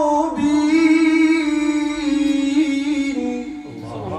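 A man reciting the Qur'an solo in melodic tajwid, drawing a phrase out on long held, ornamented notes with a brief breath about half a second in. Near the end the recitation stops and a lower man's voice comes in, speaking.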